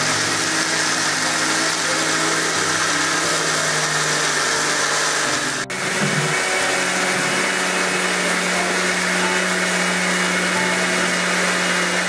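Electric mixer grinder running steadily at full speed. It is wet-grinding soaked rice with grated coconut into a thick batter. The noise breaks off for an instant about halfway through.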